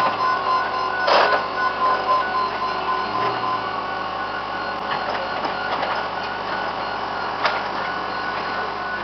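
Komatsu PC160LC excavator and a bulldozer running, with a steady high whine and a few sharp knocks, the loudest about a second in.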